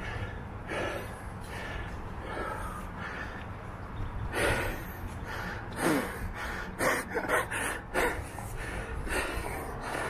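A mountain biker breathing hard, with heavy, uneven breaths about every second or two as he catches his breath.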